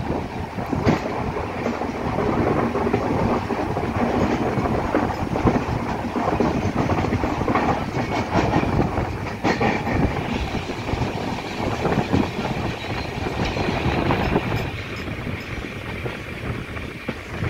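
Passenger train running on the track, heard through an open coach window: a steady rumble and rush of wheels on the rails with irregular clacks over rail joints. A faint steady high tone joins about halfway, and the running noise eases a little near the end.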